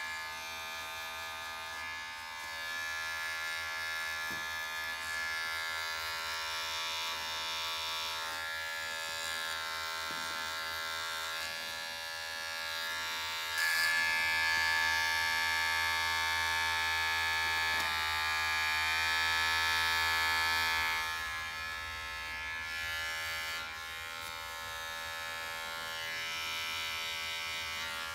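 Electric hair clippers running with a steady buzz, louder for several seconds around the middle while held against the side of the head.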